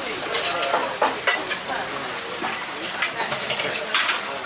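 Red sauce sizzling in a frying pan over a gas burner: a steady hiss, broken by several short knocks and clinks of metal pans and utensils.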